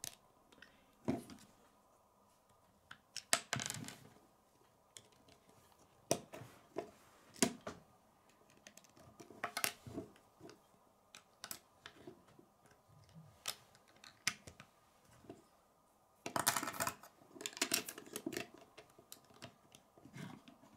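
LEGO bricks clicking and rattling as they are handled and pressed together, in scattered single clicks with a busier run of rattling clicks about three quarters of the way through.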